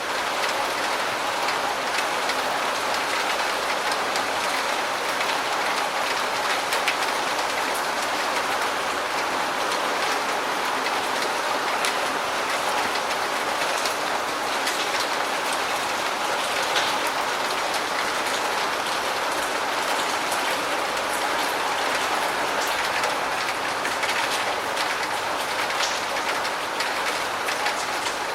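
Steady medium rainfall: an even hiss of rain with many individual drops ticking through it.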